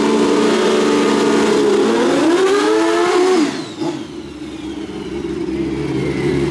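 Pro Street drag motorcycle engine held at high revs while the rear tyre spins in a burnout, rising in pitch about two seconds in, then cutting back sharply about halfway through to a steady, quieter low idle.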